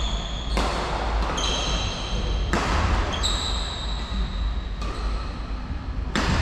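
Badminton rally: several sharp racket-on-shuttlecock hits and short bursts of sports shoes squeaking on the wooden court floor.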